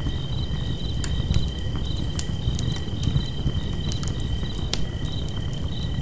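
Crickets trilling steadily, with short chirps repeating over the trill, while a campfire crackles with irregular sharp snaps and pops over a low rumble.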